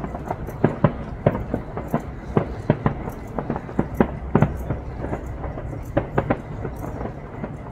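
Aerial fireworks bursting in a quick, irregular run of bangs, a few a second, over a steady low rumble.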